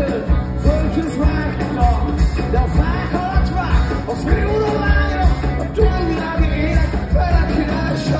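Live rock band playing: electric guitars, bass and drums with a singer's vocals, heard from among the audience.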